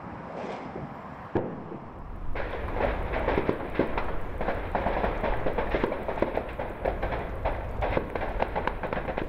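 Distant gunfire and explosions: one sharp bang about a second in, then from about two seconds in a long, dense crackle of many shots, several a second, with louder bangs among them.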